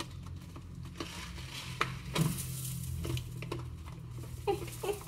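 Dry basmati rice poured from a plastic bag into a Thermomix's steel bowl: a soft hiss of falling grains with scattered small ticks and the bag crinkling.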